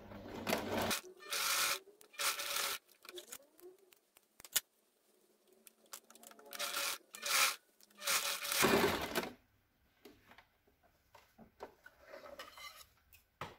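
A Janome sewing machine stitching for about a second, then cloth rustling and rubbing in several short bursts as the fabric is shifted and smoothed under the presser foot. A single click about four and a half seconds in.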